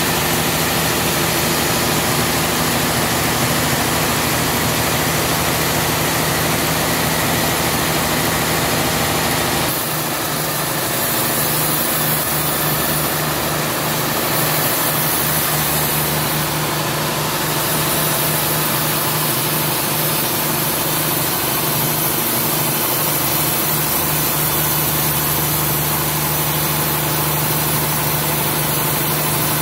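Large band sawmill running steadily, its blade sawing through a trembesi (rain tree) log. About ten seconds in, the low hum drops and a brighter, higher sound comes in.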